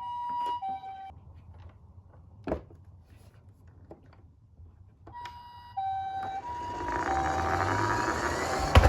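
Toy ambulance's electronic two-tone siren, alternating a high and a low note about every half second in the Japanese "pee-po" pattern. It stops about a second in, a single click follows, and the siren starts again about five seconds in, with a rushing noise building under it and a couple of loud knocks near the end.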